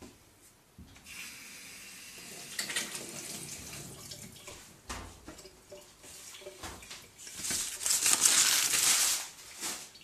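Baking paper rustling and crinkling as it is handled and pulled off a wooden worktop, loudest near the end.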